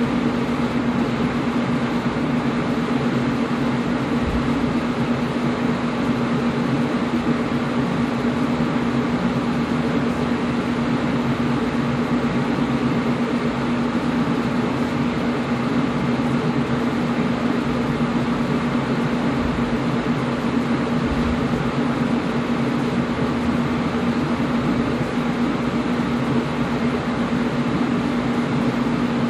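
Air conditioner running steadily: an even whooshing noise with a constant low hum.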